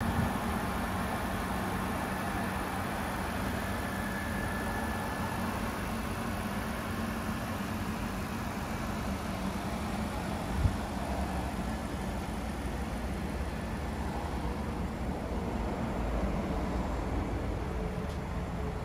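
A Mercedes CLC 200's four-cylinder petrol engine idling steadily. There is one short knock about ten seconds in.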